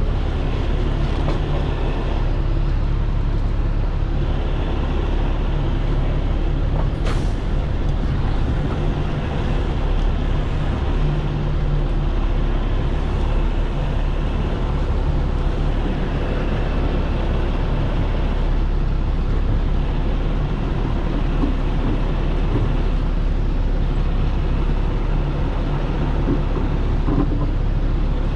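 Heavy truck's diesel engine running steadily at low speed, heard from inside the cab, with a brief sharp sound about seven seconds in.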